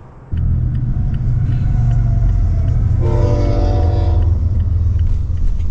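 A train passing at a crossing, its cars making a loud, steady low rumble. The train horn sounds once as a chord of tones, about three seconds in, for just over a second.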